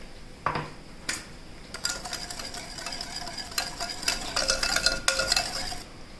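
Wire whisk beating wet cupcake batter in a glass mixing bowl, the wires clicking rapidly against the glass. It starts about two seconds in and stops just before the end, after a couple of single knocks in the first second and a half.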